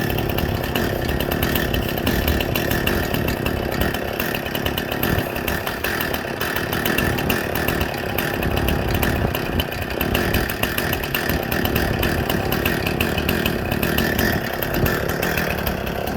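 Gasoline chainsaw running steadily at a constant pitch, cutting off the ends of the support logs under a log being milled.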